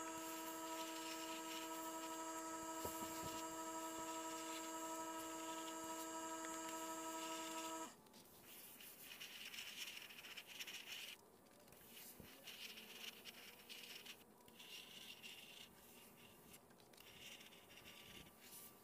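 A steady hum made of several fixed tones cuts off abruptly about eight seconds in. After that comes a faint hiss from a gravity-feed air spray gun, starting and stopping in short bursts as it sprays paint onto steel wheel rims.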